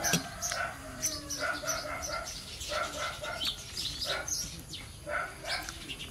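Chickens clucking in short repeated notes, with small birds chirping high above them.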